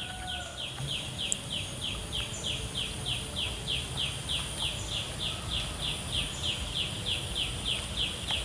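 A steady, even series of short chirps, each note dropping slightly in pitch, repeated about three and a half times a second from a calling animal, over a low outdoor rumble.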